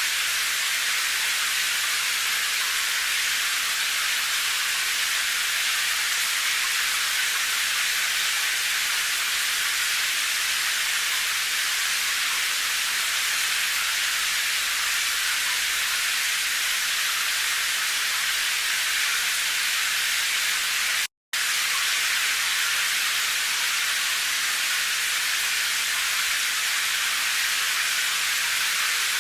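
Steady, even hiss of rain, with no separate drops or thunder standing out. It cuts out completely for a split second about two-thirds of the way through, then resumes unchanged.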